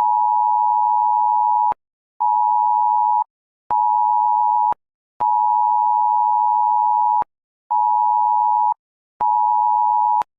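UK Emergency Alerts test tone from a mobile phone: two close pitches sounding together as a loud, harsh beep. It goes in a long-short-short pattern played twice: about two seconds on, then two one-second beeps, each separated by half-second gaps.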